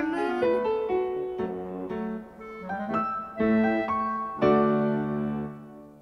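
Instrumental piano music playing a short closing phrase that ends on a held chord, which fades away near the end.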